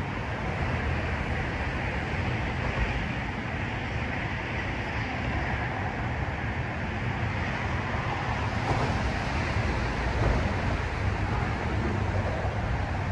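Steady low rumble of traffic crossing a large suspension bridge, mixed with wind on the microphone.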